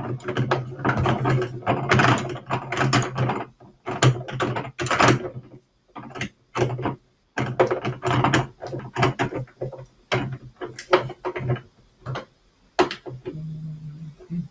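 Threaded caster stems being screwed into the hollow plastic legs of a utility cart: rapid runs of clicking and grinding, in spurts broken by short pauses.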